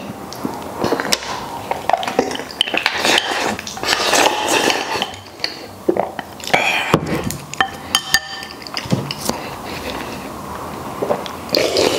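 Close-up eating sounds: wooden chopsticks clicking and scraping against a ceramic bowl, with chewing and slurping, and a brief ringing clink about eight seconds in.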